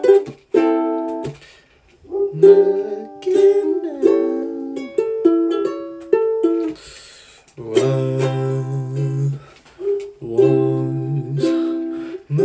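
Ukulele strummed in chords, each stroke ringing out and fading, played in short phrases with brief breaks as the player works out the chord changes.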